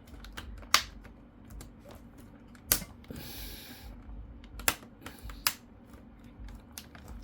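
Hands working on an HP Pavilion G6 laptop's just-refitted keyboard: light clicks and taps of keys and plastic, with four louder sharp clicks spread through and a short rubbing swish about three seconds in.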